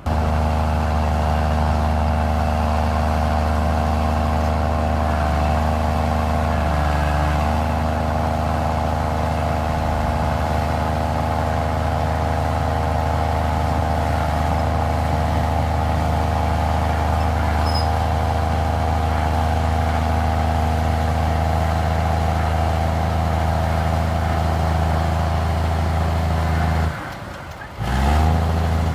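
Komatsu D53E crawler bulldozer's diesel engine running steadily under power with a deep, even drone. About 27 seconds in the engine note falls away, then climbs again in a short rising rev near the end.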